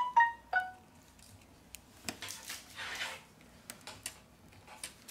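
Three or four short chime-like notes in quick succession at the start. After them come small clicks, taps and two brief rustles from hands handling the phone's internal parts and flex cable.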